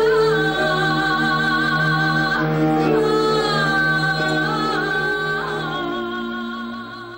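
A woman singing into a microphone, her voice wavering with vibrato over steady held low notes; the music fades out near the end.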